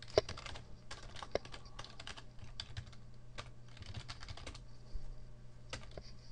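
Typing on a computer keyboard: irregular runs of keystrokes, thinning out to a few single clicks near the end, over a faint steady low hum.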